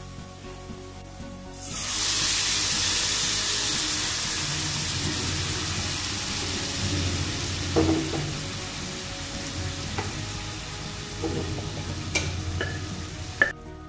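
Pre-cooked beef pieces with their juices tipped into a hot pan of fried shallots and spice powders: a sudden loud sizzle about two seconds in that slowly dies down, with a few knocks of a spoon against the pan as it is stirred.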